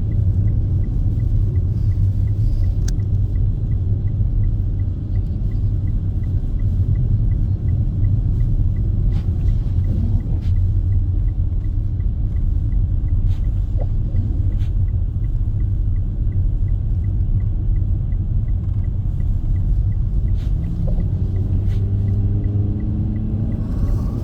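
Car driving on a snowy highway: a steady, heavy low rumble of engine and road noise. A faint, fast regular ticking runs underneath, and a few light clicks come through now and then.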